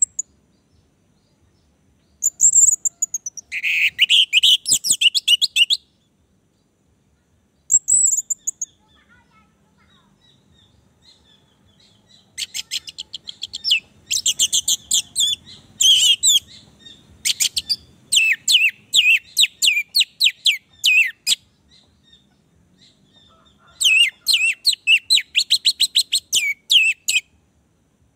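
Orange-headed thrush singing: loud phrases of rapid high notes separated by pauses of a few seconds, the longest phrase running about nine seconds in the middle.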